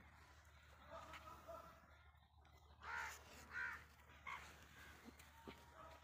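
Crow cawing three times in quick succession about halfway through, over faint background.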